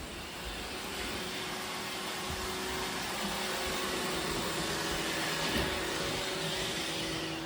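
Roomba robot vacuum running, its motor and suction fan giving a steady whirring hiss with a faint hum.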